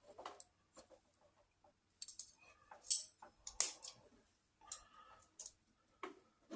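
Scissors snipping and clicking in a string of faint, irregular strokes, cutting at a plastic piece fitted on an electric hot plate's power plug.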